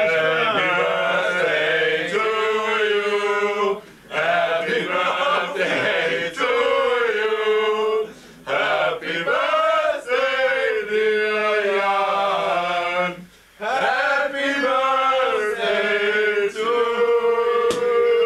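A small group of voices singing a birthday song together, in four sung lines with short breaks for breath between them.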